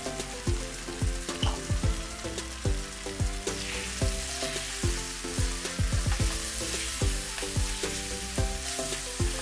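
Spiced chicken pieces sizzling in oil in a covered pan on a low flame, a steady hiss. Background music with a thumping beat runs underneath.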